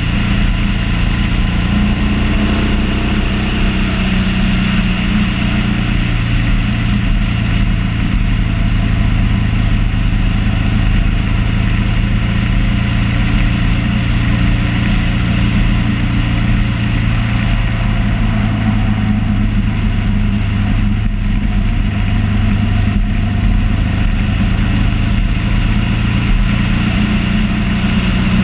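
Motorcycle engine running at a steady cruising speed, with a constant rush of wind and road noise.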